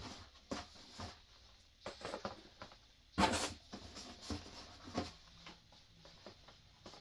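Cardboard granola bar boxes being handled and lifted out of a cardboard shipping carton: scattered short rustles and scrapes of cardboard, the loudest a little past three seconds in.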